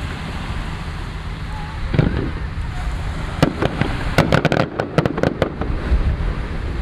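Fireworks going off: a dull boom about two seconds in, then a rapid string of about a dozen sharp cracks over two seconds, over a steady low rumble.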